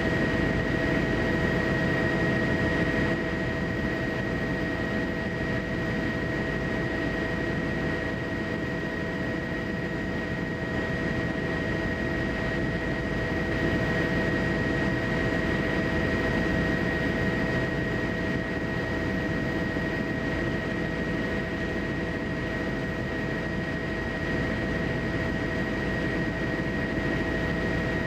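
Steady aircraft engine noise, a continuous rumble with a constant high whine that holds one pitch throughout, with small shifts in loudness about three seconds in and again near the middle.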